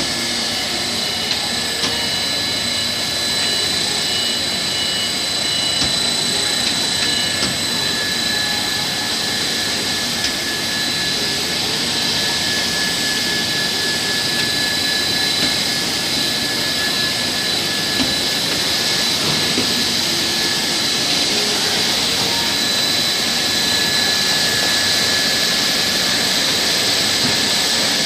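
Machinery of a PVC refrigerator door gasket production line running steadily: a continuous even hiss with several constant high-pitched whines.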